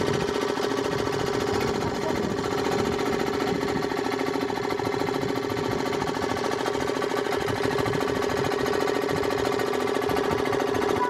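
Small engine running steadily at constant speed, with a fast, even beat and a steady pitch.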